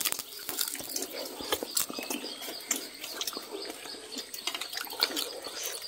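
Scattered soft clicks and scrapes of metal spoons against a metal cooking pot and of people eating.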